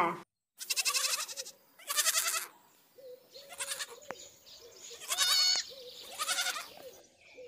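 Animals calling: a string of about five short, wavering cries, each about half a second long and one to one and a half seconds apart, with quieter, lower calls in between.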